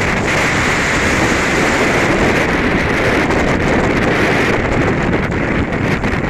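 Gale-force wind left over from a hurricane, buffeting the microphone with a heavy, steady rumble, over waves breaking and washing against the waterfront. A hissing spray sound eases about four and a half seconds in.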